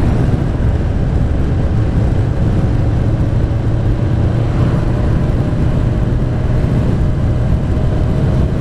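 2021 Yamaha MT-07's 689 cc parallel-twin engine, through a Mivv GP Pro aftermarket exhaust, running steadily at an even cruising speed.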